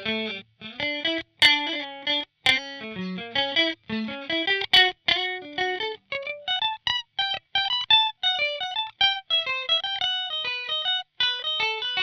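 Swing P-2S electric guitar on a clean tone through a Line 6 POD HD500, played as a lead line of short, clipped notes with brief gaps between them. The first half has fuller, several-note stabs; after about six seconds it turns to quicker single-note runs up and down.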